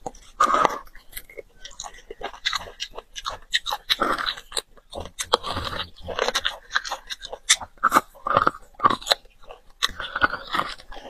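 Close-miked eating of stewed beef bone marrow: the marrow is chewed and sucked from the bone, with many irregular wet clicks and crunches.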